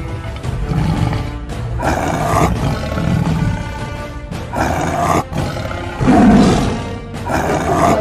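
Dubbed-in big-cat roar sound effects, about four roars a second or two apart, over a steady background music track.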